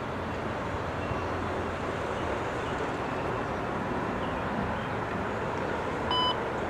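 MARC commuter passenger train rolling past, a steady rumble and hiss of wheels on rail. Near the end comes a short electronic tone over a scanner radio, the lead-in to a trackside defect detector's broadcast.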